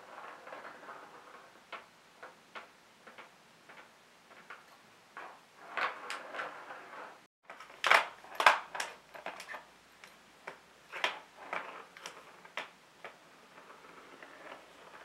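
A plastic ball rolling around the Catit Design Senses Circuit cat toy's plastic track as cats bat at it, with a soft rolling rumble and many sharp plastic clicks and knocks. The loudest cluster of knocks comes just after a brief break about halfway.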